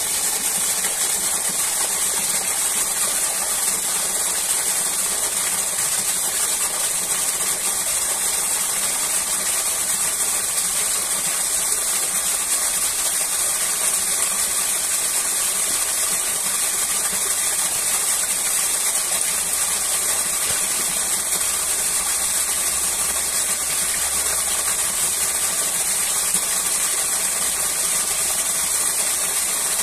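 Steady rushing of a waterfall: an even hiss that does not change.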